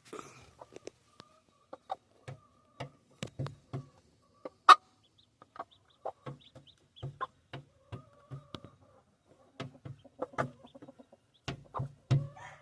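Game chickens clucking in short, scattered clucks, with a sharp click a little under halfway through.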